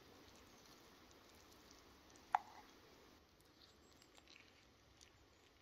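Mostly quiet food handling: a single sharp click of a plastic spoon against a cooking pot about two and a half seconds in, then a few faint soft ticks as the spoon scoops out avocado flesh.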